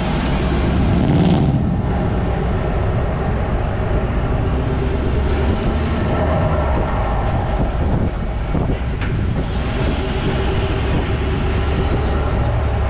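Pickup truck driving slowly, its engine giving a steady low drone under tyre and road noise, with a couple of faint clicks.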